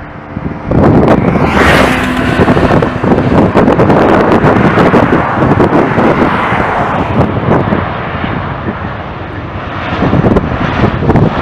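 Airbus A321's two CFM56-5B jet engines running loudly as the airliner rolls out after touchdown. The noise rises sharply about a second in, eases a little later on, then swells again near the end as the aircraft passes.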